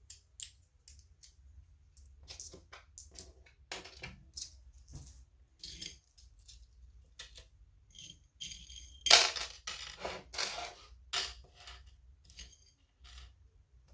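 Small hard objects being handled: irregular clicks, clinks and rattles, with a louder clatter about nine seconds in.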